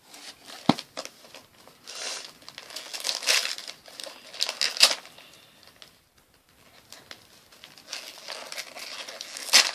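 Gift packaging crinkling and rustling in irregular bursts as a birthday present is unwrapped, with one sharp knock about two-thirds of a second in.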